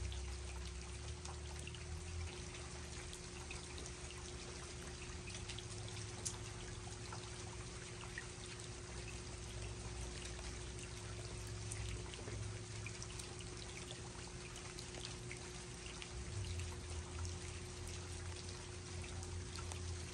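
Steady rain falling, with scattered drops tapping and running water, over a low rumble and a faint steady hum.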